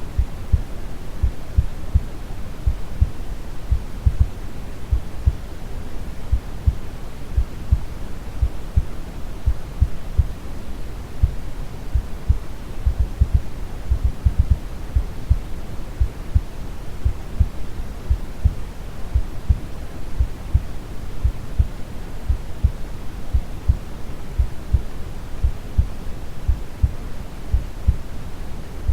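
Brown noise, a steady deep rumble, layered with a calm heartbeat's regular low thumps.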